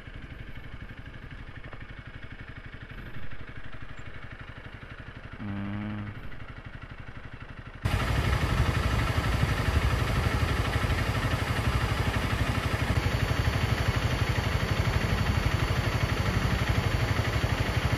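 Motorcycle engine running at a low, even beat. About eight seconds in, the sound jumps abruptly to louder riding noise: the engine under a steady rush that stays even to the end.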